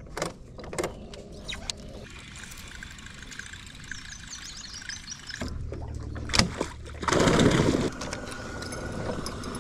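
Electric trolling motor on a jon boat starting a little past halfway and humming steadily, with a loud rush of noise lasting about a second soon after it starts. Before that, a few sharp clicks and faint bird chirps.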